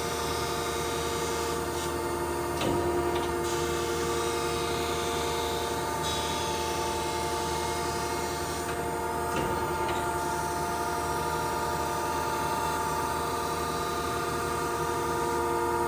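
A 1992 Okamoto ACC-2040DX2 hydraulic surface grinder running its automatic grinding cycle: a steady hum of the spindle and hydraulics with several held tones, over the hiss of the wheel grinding vise jaws. A few faint ticks come through.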